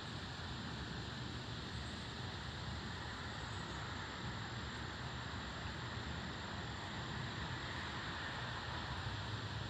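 Steady outdoor background noise: an even hiss over a low hum, with no distinct events.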